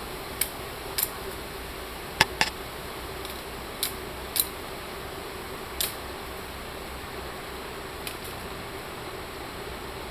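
Machete blade striking a thin bamboo pole as it is trimmed: sharp, irregular knocks, about eight of them with the loudest a couple of seconds in, over a steady background hiss.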